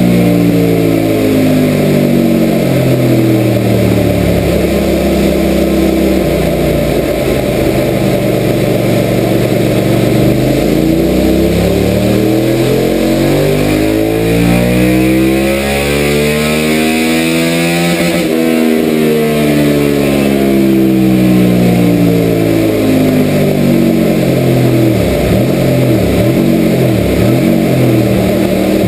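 Suzuki SV650's 645 cc 90-degree V-twin running on a rolling-road dyno. The revs fall away at first, then climb steadily in a power run to a peak about 18 seconds in, then die back down as the throttle closes.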